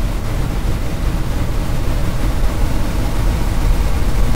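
Synthesized red noise from a tone generator, re-synthesized on a computer: a dense rumbling hiss weighted heavily toward the bass, swelling slightly before it cuts off abruptly at the very end.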